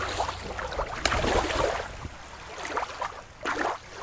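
Shallow river water lapping and splashing at the shoreline in irregular gushes; about two seconds in, the sound switches to a different recording with a few softer gushes of water noise.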